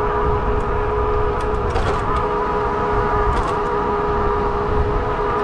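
Fat-tire e-bike under way: a steady whine from the motor and tyres, with wind rumbling on the microphone.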